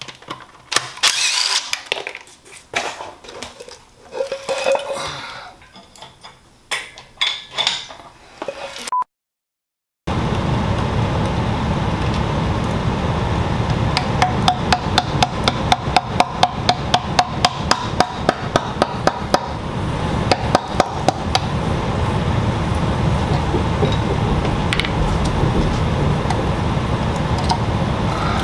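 Short bursts of a cordless power driver and metallic clinks of tools and bolts on an engine's oil pan. After a brief silence, background music with a steady beat takes over for the rest.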